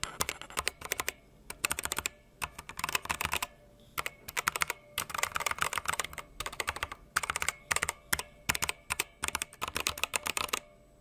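Fast typing on a BenQ Zowie Celeritas II keyboard's optical switches: bursts of rapid key clicks with short pauses between them, picked up close by a lapel microphone held over the keys. A little spring noise from under the keys comes from its reinforced steel springs.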